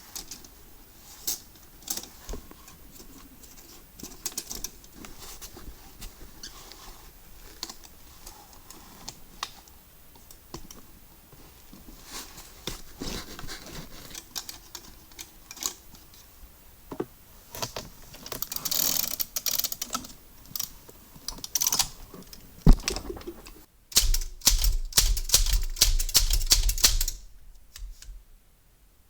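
Manual typewriter being cleaned by hand: scattered clicks and clacks of its metal parts, with stretches of scrubbing. Near the end comes a louder stretch of rough noise over a low hum.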